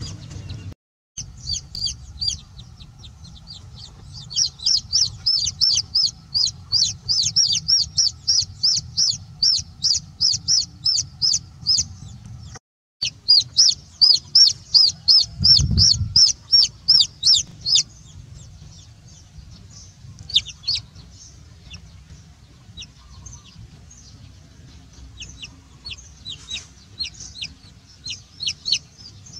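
A downy chicken chick peeping loudly and rapidly, about four high peeps a second, typical of a chick's distress call. A dull thump comes about halfway through. After that the peeping thins out to scattered, fainter peeps.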